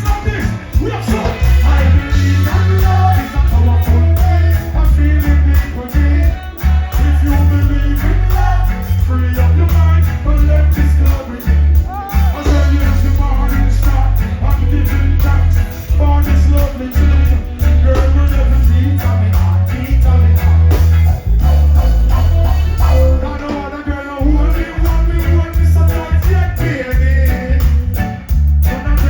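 Live reggae band playing with a heavy bass line throughout, a voice singing over it.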